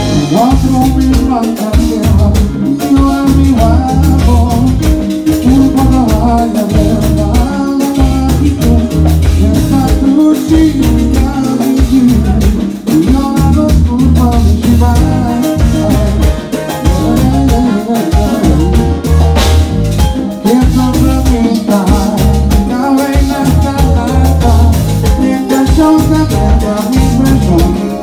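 Live band playing an upbeat Latin-Caribbean song: a man singing into a microphone over drum kit, keyboards and a heavy rhythmic low end.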